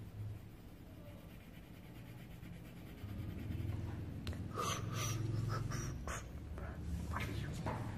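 A paper drawing card is moved and turned on a cloth-covered table and a coloured pencil is put to it, giving short rustles and scratches in the second half. A low steady hum underneath grows louder about three seconds in.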